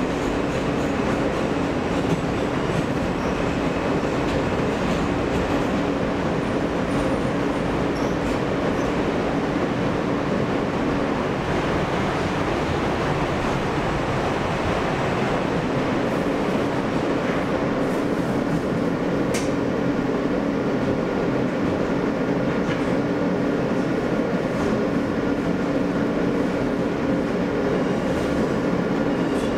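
Inside an R160 New York City subway car running at steady speed through a tunnel: a continuous rumble of the train with a steady hum. There is a single sharp click a little after the middle.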